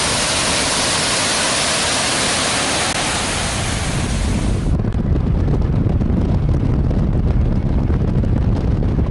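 Steady rushing of a waterfall. Just under halfway through the sound suddenly turns muffled into a low rumble, the hiss gone, as wind buffets the microphone.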